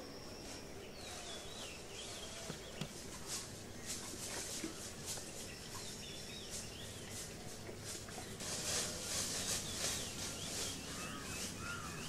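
Water poured from a watering can splashes and hisses onto dry leaf litter, loudest about two-thirds of the way through. Birds chirp over it, with a quick run of repeated short arching calls near the end.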